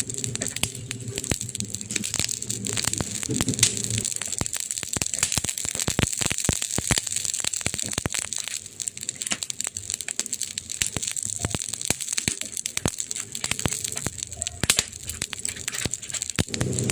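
Burning wood fire crackling: many sharp, irregular snaps in quick succession over a steady hiss, with a low rumble during the first four seconds.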